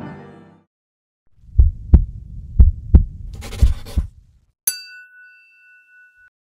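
The end of the background music fading out, then a heartbeat sound effect of three double thumps with a short whoosh over the last pair, followed by a single bright ding that rings for about a second and a half.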